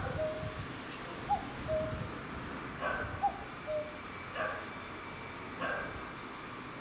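Common cuckoo calling its two-note "cuck-oo", a higher note dropping to a lower one, three times about every one and a half seconds before stopping a little past halfway. A few separate short, sharp calls of another animal sound at intervals alongside.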